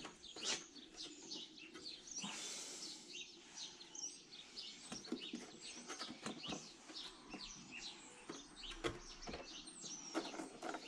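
Small birds chirping and singing in the background, with a few faint knocks and rustles as filter sponges are pushed into a glass sump box packed with bio balls.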